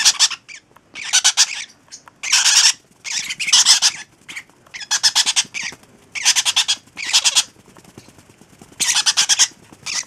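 Hand-raised baby parrot chicks (yellow-sided conures with a lovebird and a parrotlet) squawking: about eight harsh, raspy calls of roughly half a second each, coming in bursts with short gaps between them.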